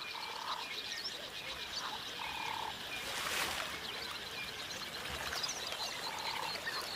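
Riverside ambience: a frog calling in short trills, three times about half a second each, over faint high chirping. There is a brief rushing swell a little past the middle.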